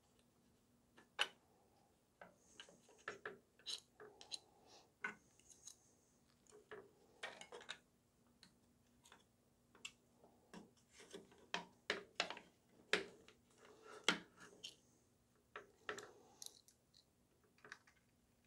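Small plastic gel blaster parts being handled and fitted back into the blaster's plastic housing: scattered light clicks and taps at irregular intervals.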